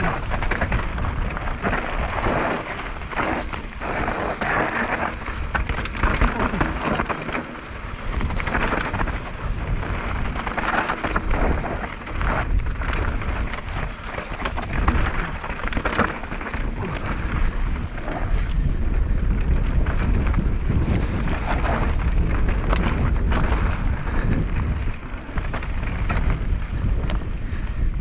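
Wind buffeting a GoPro action camera's microphone while a mountain bike rides down a dirt trail, with tyres rolling and many short rattles and knocks as the bike goes over bumps.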